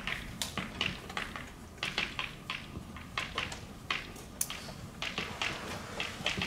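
Chalk writing on a blackboard: irregular sharp taps and short scratchy strokes as words are written.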